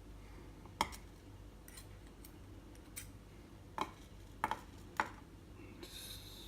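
Small metal clicks and taps, about seven spread irregularly, from steel lock picks working against the parts of an Elzett 2048 padlock while a pin that holds the shackle is pushed and caught into place. A short soft rustle near the end.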